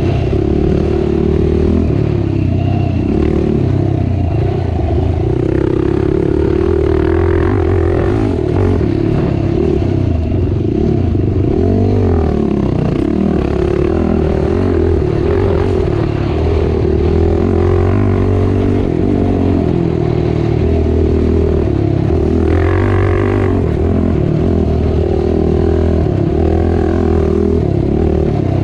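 Racing ATV engine running hard, its note rising and falling repeatedly as the throttle is worked.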